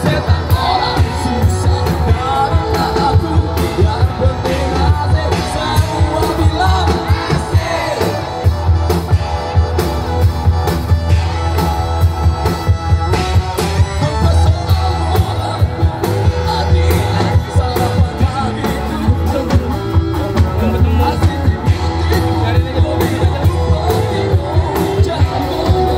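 Live band playing through a PA system: a singer over electric guitar and a steady beat.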